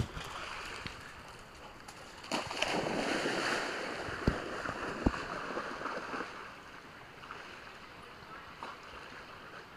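Yellow Labrador retriever splashing through creek water as it plunges in and swims out. The splashing swells about two seconds in and eases after about six seconds, with two sharp clicks in the middle.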